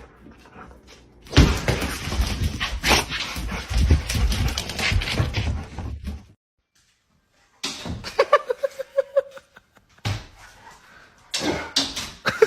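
A loud, rough noise for several seconds, then a dog whining in short, repeated, pitched cries after a break.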